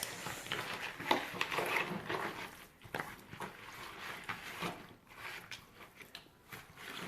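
Hands mixing raw quail pieces with herbs and seasonings in a bowl: irregular soft squelching and rubbing with scattered small clicks.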